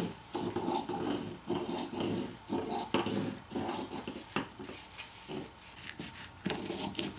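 Fabric scissors cutting through two pinned layers of tarp fabric in a steady series of rasping strokes, about two a second.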